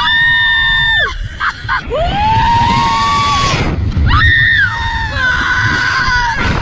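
Two women screaming on a slingshot thrill ride: three long, high, held screams with short breaks between them, over a steady low rumble.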